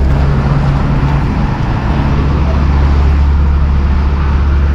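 A motor vehicle's engine running close by, a steady low drone that eases near the end, over general street traffic.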